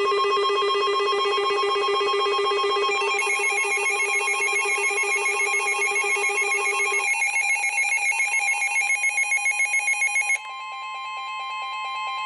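Electronic emergency alert attention tones: a loud warbling, trilling multi-pitched tone that shifts pitch twice and pulses, then changes about ten seconds in to a steady single high tone.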